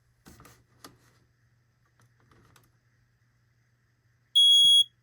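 A few light clicks and knocks, then one loud, high-pitched beep about half a second long from a smoke alarm's piezo sounder near the end.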